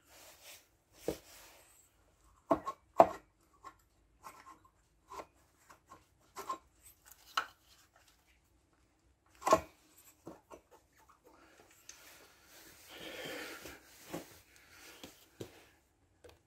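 Cylinder head being worked down over its studs onto the cylinder: scattered knocks and clunks, the loudest a pair about three seconds in and a single one near the middle, then a short rubbing sound near the end.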